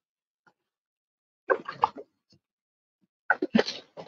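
Kayak paddle strokes in water: two splashy, dripping strokes, about a second and a half in and again near the end.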